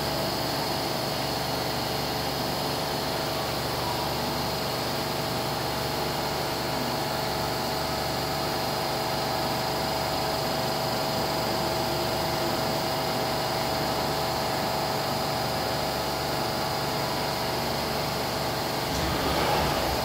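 Cincinnati Lamb FTV5 five-axis milling machine running as its swivelling spindle head traverses: a steady mechanical hum with a constant high whine and a lower steady tone.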